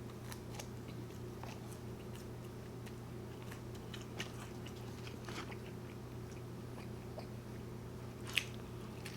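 Close-miked mouth sounds of a person biting and chewing In-N-Out fast food, with scattered small crunches and wet clicks over a steady low hum.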